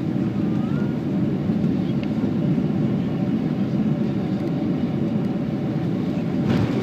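Airliner cabin noise as the plane rolls along the runway after landing: a steady, low rumble of engines and wheels, with a brief swell near the end.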